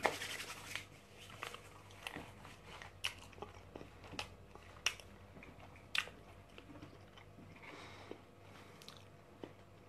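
Close-up mouth sounds of a person biting and chewing fast food, with scattered sharp crunchy clicks. A short rustling noise is heard right at the start.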